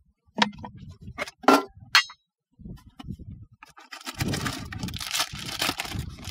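Plastic and tin containers being handled: a few sharp clicks and knocks as an orange plastic tube comes off a cylindrical whisky tin, one with a brief metallic ring about two seconds in. From about four seconds there is a steady rustling and scraping as a plastic container is slid out of the tin.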